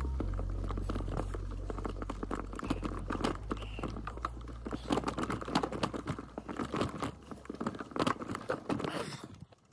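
Mountain bike tyres crunching and rattling over a rooty dirt trail. A dense, irregular run of clicks and crackles gets louder about halfway through and drops away just before the end.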